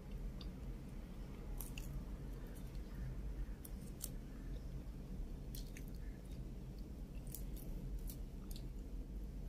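Cooked shrimp being peeled by hand: the shell crackles and snaps in scattered small clicks over a steady low hum.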